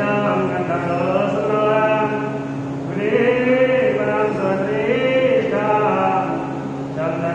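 Sanskrit mantras chanted in a rising and falling recitation for a Hindu puja, with brief breaks between phrases, over a steady low hum.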